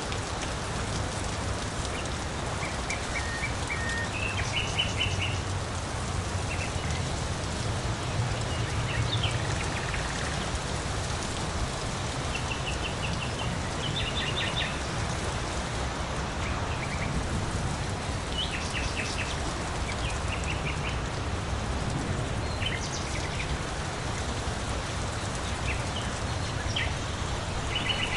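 Steady rain falling, with songbirds calling through it: short, quick runs of high chirps every few seconds.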